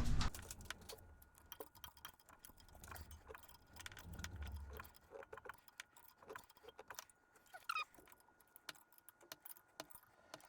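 Faint, irregular metallic clicks and clinks of hand tools, a wrench working on the bolts of a car's A/C compressor bracket.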